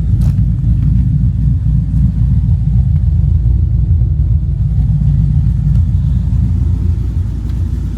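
Car engine idling loudly while warming up after a start, a steady low rumble.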